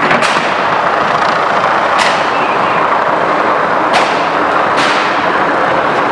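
Four sharp bangs ring out over a loud, steady din of riot noise: one at the start, then about two seconds apart, the last two close together.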